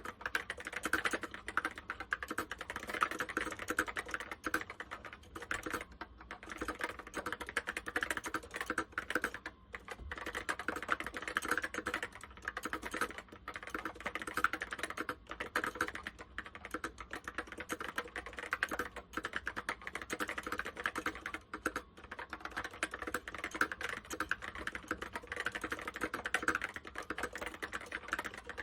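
Typing on an Apple M0110 keyboard with Alps SKCC Tall Cream switches: a fast, continuous run of keystroke clicks broken by a few brief pauses.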